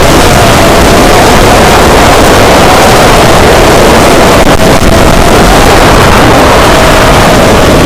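Model plane's motor and propeller heard from a camera on board: a steady, slightly wavering whine buried in loud wind buffeting.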